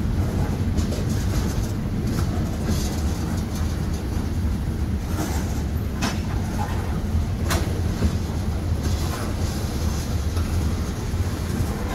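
Freight cars (covered hoppers and a tank car) rolling past at speed: a steady low rumble of steel wheels on rail, with a few sharp clacks near the middle.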